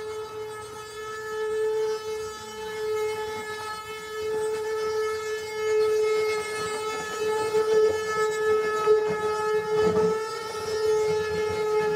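Axle of a moving-axle ox cart singing as the wheels turn: one sustained high squealing tone with strong overtones, swelling and fading in loudness, with a few low knocks about ten seconds in. This is a designed, even tuned sound that served to identify the cart.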